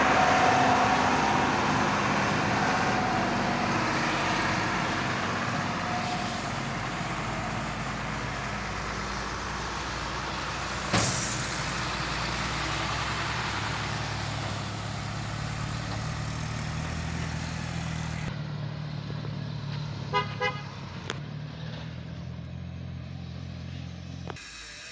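Diesel truck engine running with road noise from the rough track, a single sharp knock about eleven seconds in, and two short horn toots near the end.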